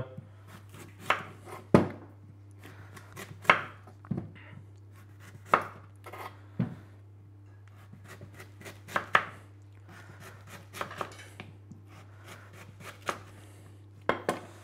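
Knife slicing a raw sweet potato into chips on a wooden chopping board: unhurried, irregular cuts, each ending in a knock of the blade on the board, about one every second or two. A faint steady low hum runs underneath.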